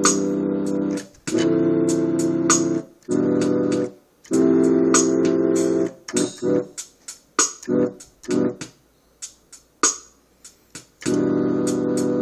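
Electronic keyboard playing a chord progression with a piano sound. Held chords alternate with brief gaps, then a run of short, choppy chords from about halfway, and held chords return near the end.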